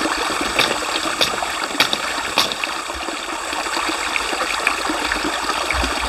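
Shallow mountain stream running and trickling over rocks around a hose intake. Four faint ticks come about half a second apart in the first half.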